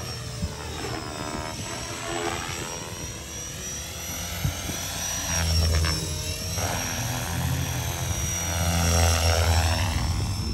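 Align 500 electric RC helicopter flying aerobatics, the rotor and motor sound rising and falling in pitch again and again as it manoeuvres. A low rumble joins in from about five seconds in until near the end.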